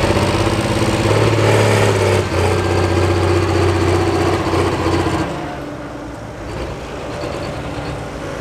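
International 1086 pulling tractor's diesel engine running at a low, steady speed, a little louder from about a second in, then fading after about five seconds as the tractor drives away.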